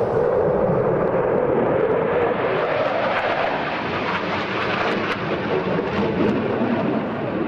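Eurofighter Typhoon's twin Eurojet EJ200 turbofans, a loud, steady jet rumble as the fighter flies its display. The sound turns harsher and crackling through the middle, then eases slightly toward the end.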